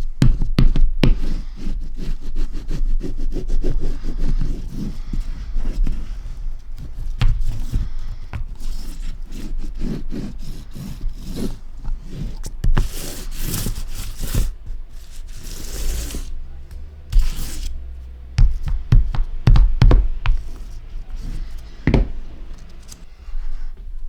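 Irregular knocks, scrapes and rubbing of hand tools and paper on a work surface during linocut printmaking, with a longer stretch of scraping or rustling about halfway through.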